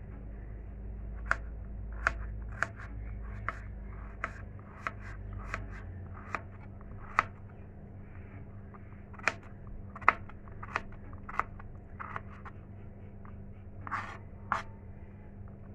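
Kitchen knife chopping a peeled potato into cubes on a plastic cutting board: irregular sharp knocks of the blade on the board, about one a second, a few louder than the rest.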